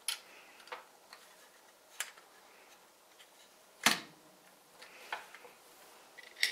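Plastic building-brick toy fire truck handled by hand: scattered clicks and taps of plastic parts, about six in all, the loudest a sharper knock about four seconds in.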